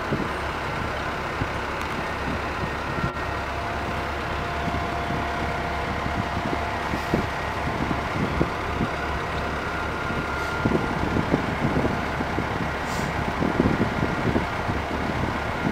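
Heavy industrial work noise: a steady low machinery rumble with scattered clanks and knocks that come more often in the second half.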